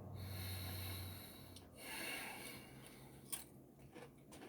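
A man's faint closed-mouth 'mmm' that trails off about a second in, followed by a breath through the nose around two seconds in and a single small click near the end.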